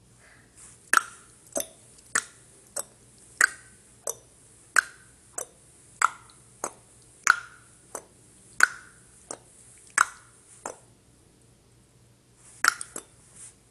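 A run of sharp, evenly spaced clicks, about three every two seconds. They pause about eleven seconds in, then come back as a quick cluster near the end.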